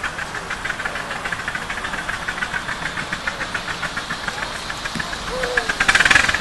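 Miniature live-steam locomotive chuffing steadily under load as it hauls a train of riding cars, its exhaust beats quick and even. A louder rush of noise comes near the end as the engine draws close.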